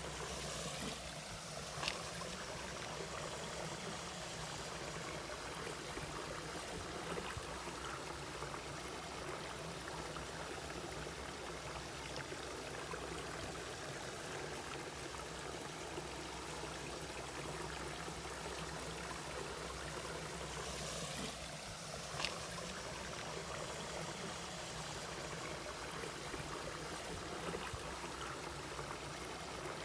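Mountain valley stream flowing, a steady rush of water, with two brief sharp clicks about twenty seconds apart.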